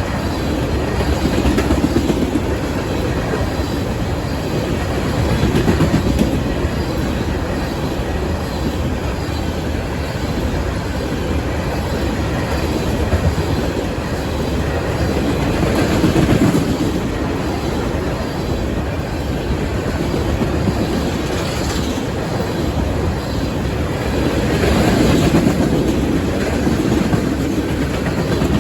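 Ethanol tank-car freight train rolling past at speed, its wheels clattering over the rail joints in a steady rumble that swells and eases every few seconds.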